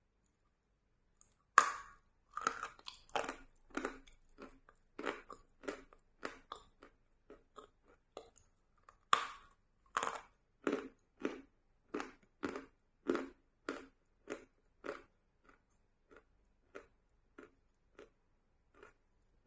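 A bite into a stick of dry chalk coated in wet chalk paste, then crunchy chewing of the chalk at about two crunches a second. A second sharp bite comes about nine seconds in, followed by more chewing that grows fainter and sparser toward the end.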